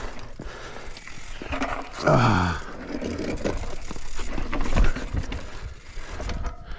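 Mountain bike and gear scraping and knocking over rock, with a low rumble underneath. About two seconds in comes a short vocal sound that falls in pitch.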